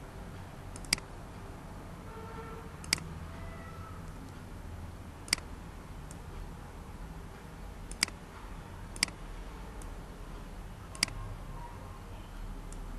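Computer mouse clicking: six single, sharp clicks at irregular intervals over a low background hum.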